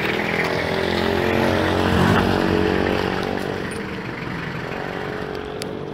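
A motor vehicle's engine passing by on the road, growing louder to its closest point about two seconds in, then fading away.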